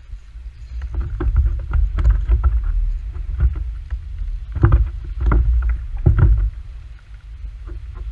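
Handling noise of a rod and spinning reel in a kayak as a fish is reeled in: a run of clicks and knocks over a low rumble on the microphone, with the loudest thumps between about four and a half and six seconds in.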